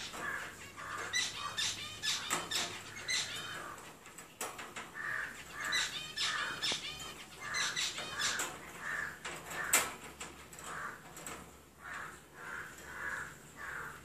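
A small metal padlock clicking and rattling against the wire bars of a cage door as a parrot works at it with its beak, in quick irregular bursts.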